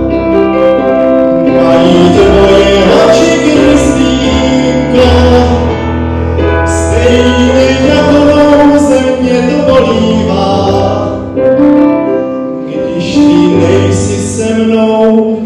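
Man singing into a handheld microphone, accompanied by an electric keyboard playing sustained chords.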